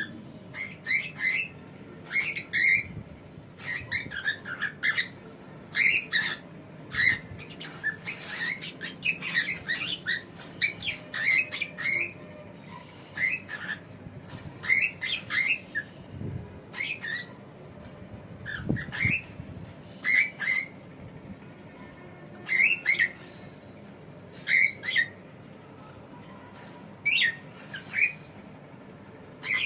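Cockatiel chirping and squawking: short runs of quick, high-pitched calls with brief pauses between them.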